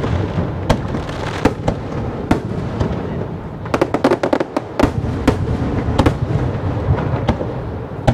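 Aerial firework shells bursting: a string of sharp bangs at irregular intervals over a continuous low rumble, with a quick run of crackling reports about four seconds in. The bangs thin out near the end.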